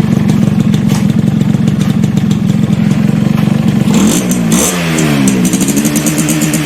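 Motorcycle engine running loud through an aftermarket racing exhaust pipe, held at steady revs for about four seconds, then the revs dip and rise again in swings.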